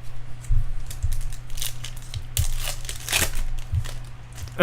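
Foil wrapper of a 2011 Bowman Chrome card pack crinkling and tearing as it is handled and opened, in a run of sharp crackles that is busiest in the middle. A steady low hum sits underneath.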